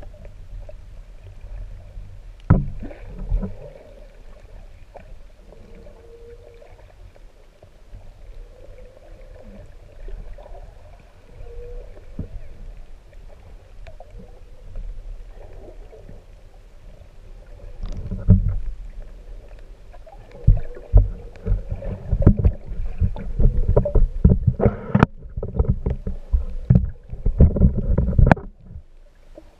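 Muffled underwater sound from an action camera in its waterproof housing at the sea surface: a low water rumble, then from about two-thirds of the way in a run of sloshing and knocks as water moves against the housing.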